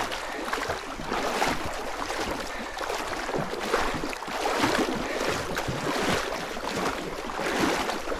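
Water sloshing and swishing around a person's chest waders as he wades through a shallow creek, in a rough rhythm of strides.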